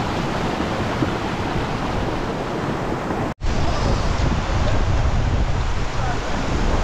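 Muddy floodwater rushing down a stony gully, a steady rushing noise. About halfway through it cuts off sharply and gives way to heavier wind buffeting the microphone.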